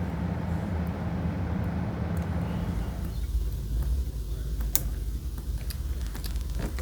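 Steady hiss and hum of an electric blower that cuts out about three seconds in, followed by a low hum and light clicks and taps of small tools during desoldering of the watch's touchscreen.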